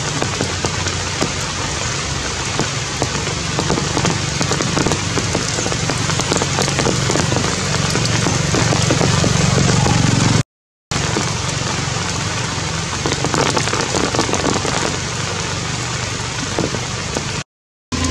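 Heavy rain falling steadily, a dense patter of countless drops. The sound cuts out completely for a moment twice, about halfway through and again near the end.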